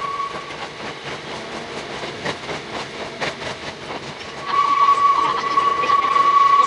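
Hakone Tozan Railway 2000-series electric train running over curving mountain track, with scattered clicks. About four and a half seconds in, a steady high tone comes in and holds, louder than the running noise.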